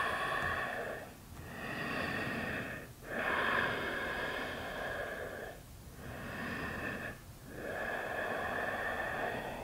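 Ujjayi breathing: slow, audible throat-narrowed breaths in and out, about five in a row, each one to two and a half seconds long with brief pauses between, heard close on a clip-on microphone.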